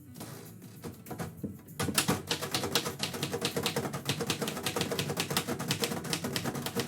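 Typewriter being typed on: a few scattered key clicks, then from about two seconds in a fast, steady run of keystrokes, about six a second, as a line of poetry is typed.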